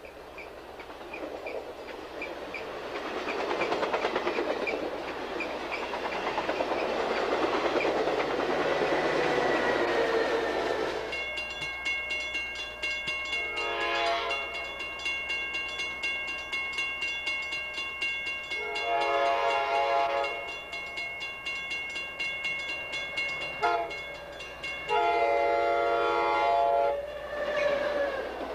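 Amtrak passenger cars rolling past with steady wheel and rail noise. Then a grade-crossing bell rings steadily while an F40PH locomotive's Nathan K5LA five-chime air horn sounds the crossing signal: long, long, short, long.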